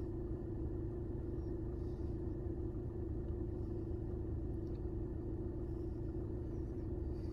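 Steady low rumble of a car being driven, heard from inside the cabin, with a constant hum over the road and engine noise.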